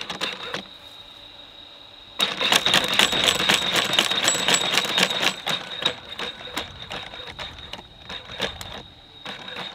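Ghost Robotics Vision 60 quadruped robot's leg motors working, a rapid mechanical clicking and clattering over a steady high whine. The clatter starts about two seconds in, is thickest for a few seconds, then thins out.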